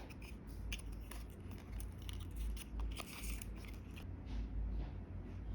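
Small hand-crafting sounds of cutting and handling paper or card for miniature pieces: a string of light snips and clicks, with a brief scrape about three seconds in.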